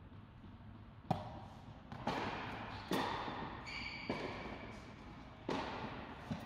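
A tennis racket strikes a red low-compression ball about a second in, then several further knocks of the ball bouncing follow over the next few seconds, each with a long echo from a large indoor tennis hall.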